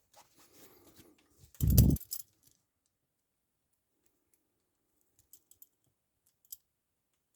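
Small metallic scrapes and clicks of a paper clip being worked in the keyhole of a vintage American Munition Company handcuff, with handling noise and one loud bump a little under two seconds in.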